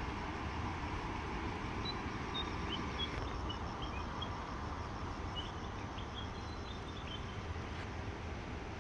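Steady outdoor ambience, a low rumble with a hiss above it, with a scatter of short high chirps through the middle.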